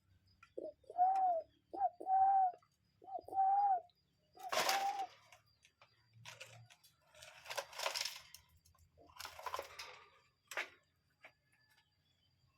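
A common cuckoo calling its two-note "cuck-oo" about four times, each a short note and then a longer held one. After that come a few rustling, hissy noises.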